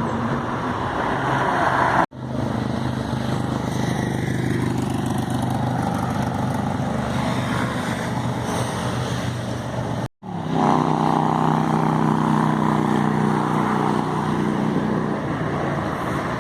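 Motorcycles with loud aftermarket exhausts running and revving as they pass along a street. There are three separate passes, the sound cutting off abruptly about two seconds and ten seconds in.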